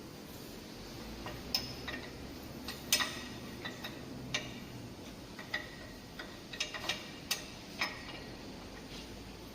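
Irregular metallic clicks and taps, about a dozen, some with a short bright ring, as parts of a circular saw blade grinder are worked loose by hand, over a faint low hum.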